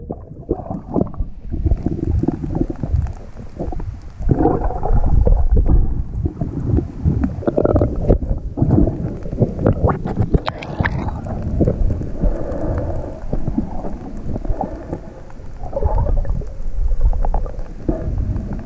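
Muffled underwater noise from a camera held below the surface while snorkeling: water sloshing and gurgling over the camera, with irregular knocks and thumps throughout.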